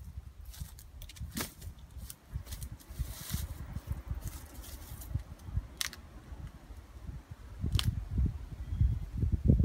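Dry sticks and grass being handled at ground level: rustling with a few sharp snaps and cracks. A low rumble runs underneath and grows louder near the end.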